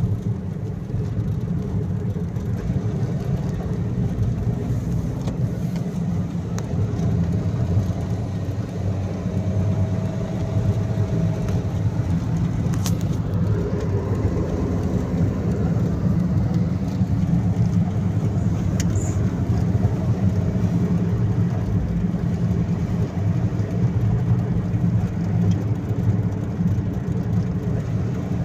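Car cruising at motorway speed, heard from inside the cabin: a steady low drone of engine and tyre road noise.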